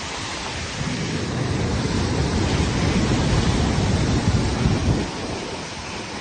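Heavy ocean surf breaking and surging against a rock ledge. It swells into a loud, low rumble about a second in and eases a little near the end.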